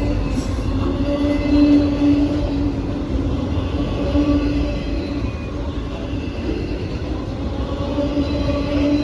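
Freight train rolling past close by: a steady rumble of wheels on rail, with a wavering whine that rises and fades several times over it.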